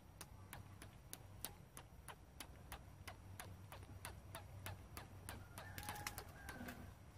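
Faint, regular ticking, about three clicks a second, with a brief higher-pitched tone near the end.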